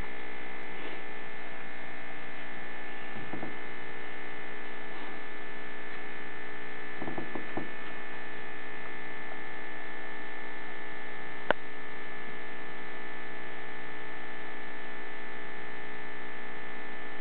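Steady electrical hum with a high buzzing tone over it, unchanging throughout, with a single sharp click about two-thirds of the way through.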